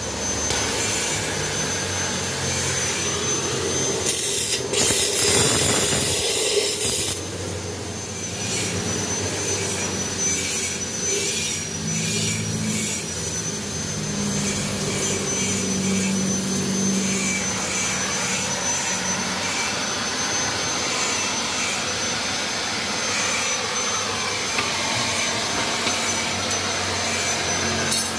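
Metal-cutting work on a Yamaha Mio exhaust muffler, cutting the coiled pipe inside it: a steady high whine with hiss, swelling louder for about three seconds around five seconds in.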